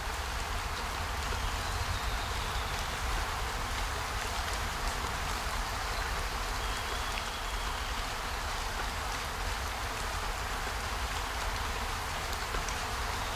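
Steady rushing water noise, with a low rumble beneath and a couple of faint, brief high whistles.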